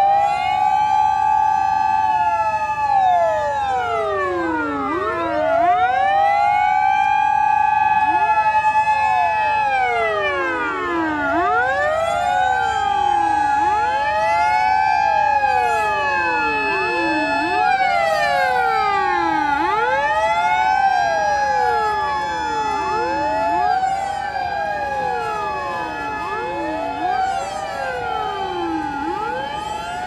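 Several Japanese fire and rescue trucks' sirens wailing together out of step. Each wail rises to a held note and slides back down every few seconds, so the rises and falls keep overlapping.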